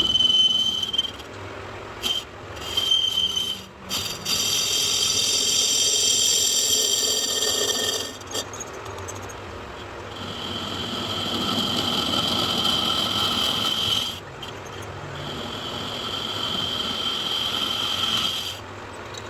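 Lathe turning a cast-iron V-belt pulley: a high, steady squeal from the cutting tool that stops and starts several times, with a louder, rougher screech from about four to eight seconds in.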